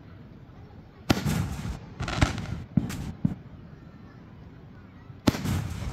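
Aerial fireworks bursting: five sharp bangs, irregularly spaced, with the first and last followed by a short rumbling echo.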